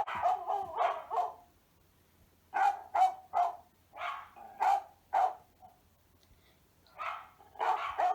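A dog barking in quick runs of several short barks, with pauses of one to two seconds between the runs.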